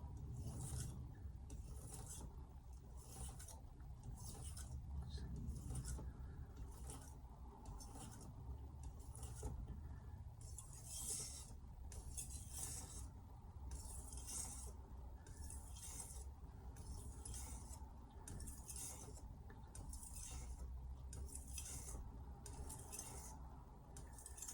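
A carbon-steel Hatsukokoro kitchen knife being stropped: a steady series of short, hissing edge-trailing strokes, each one brief, repeating about once a second, to take off the burr after sharpening.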